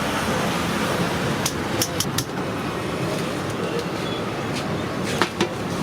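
Street traffic noise, a steady hum of passing vehicles, with a few sharp clicks about two seconds in and again near the end.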